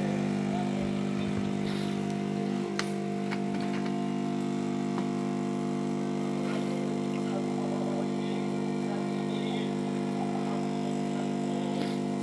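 Home espresso machine's vibratory pump humming steadily with a low, even buzz, with a click about three seconds in.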